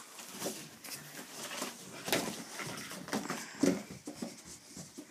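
Footsteps walking and climbing carpeted stairs: soft, evenly spaced thumps about two a second.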